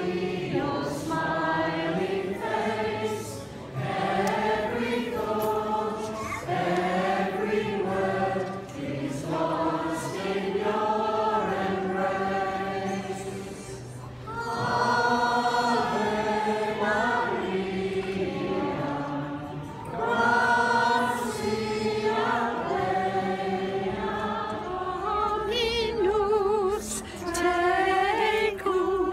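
A congregation singing together: many voices holding slow, sustained notes in phrases a few seconds long, with a wavering higher voice standing out near the end.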